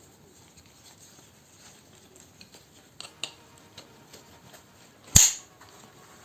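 Handling noise of a plastic airsoft grenade replica being worked against a grenade pouch: light rustling and small clicks, a couple of sharper clicks about three seconds in, and one loud sharp knock about five seconds in.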